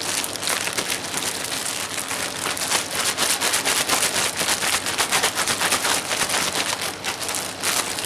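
Ziploc plastic bag holding water, socks and underwear, crinkling and crackling steadily as it is rolled and kneaded by hand to rinse the laundry.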